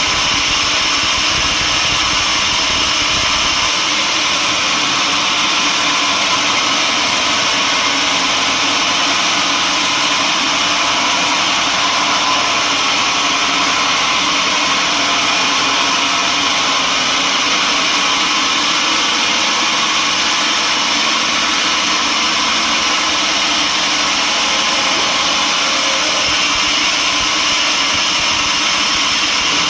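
Sawmill machinery running with a loud, steady mechanical drone that does not change.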